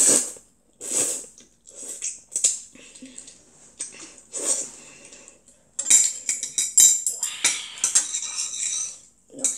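A child slurping noodles from a bowl of soup in several separate bursts. About six seconds in, metal chopsticks clatter and scrape against a ceramic bowl for about three seconds.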